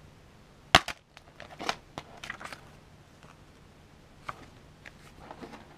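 Plastic DVD case snapping open with one sharp click, followed by softer clicks and the rustle of a paper insert being handled.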